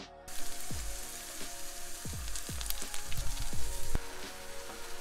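Ground turkey sizzling in a hot cast iron skillet while a wooden utensil breaks it into chunks, with short scrapes and taps against the pan. The sizzle starts suddenly about a third of a second in. Background music with a deep, thudding beat runs underneath.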